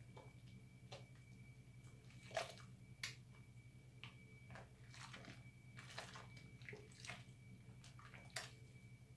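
Soapy hands squelching and squishing as they work a bar of recycled soap into thick lather, in irregular wet clicks with the loudest about two and a half and three seconds in. A steady low hum and a faint high whine sit underneath.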